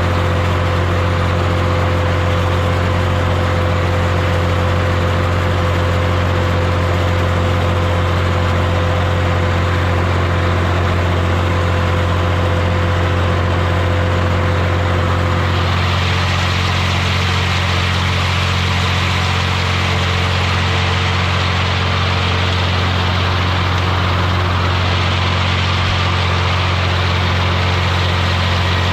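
Tractor engine running steadily with a deep, even hum. About halfway through, a steady mid-pitched tone stops and a higher hissing noise grows louder.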